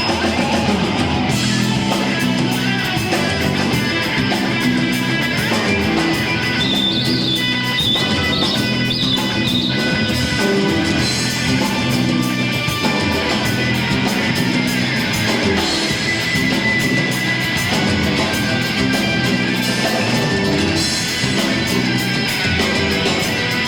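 Rock band playing live, an instrumental passage with guitars over a steady beat and no singing.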